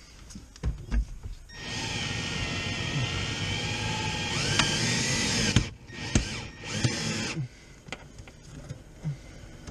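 A few knocks, then a cordless drill runs the winder of a WRD Orange Bat wire-out tool, pulling cutting wire through the windshield's urethane. It runs steadily for about four seconds, stops, gives a short blip, and runs again for about a second.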